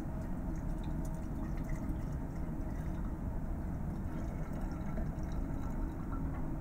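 Liquid poured from a small plastic bottle into a glass Erlenmeyer flask, trickling steadily into the glass over a steady low background hum.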